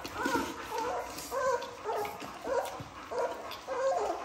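Four-week-old puppies whimpering and yipping as they crowd a pan of raw ground beef: short rising-and-falling whines, about two a second.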